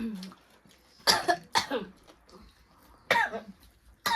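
A person coughing in short, sharp bursts: two coughs about a second in, another around three seconds in, and a brief one near the end.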